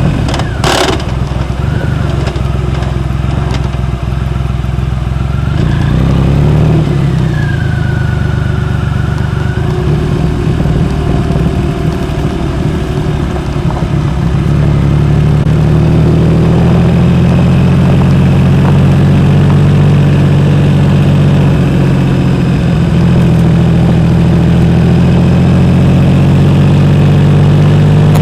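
Triumph Rocket 3 Roadster's 2.3-litre inline-three engine running through a Jardine aftermarket exhaust while riding. The engine note rises about halfway through and stays there, at a higher pitch and louder.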